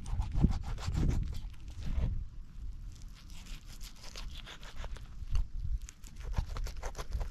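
Knife cutting along a duck carcass's breastbone and ribs: a run of small crunches, clicks and tearing.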